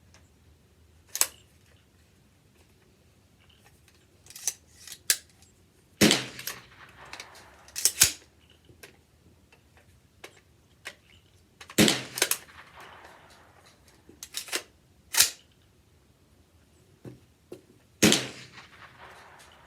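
AR-15 rifle shots fired singly at uneven intervals, about a dozen in all, the loudest coming about six, twelve and eighteen seconds in, each trailing off briefly.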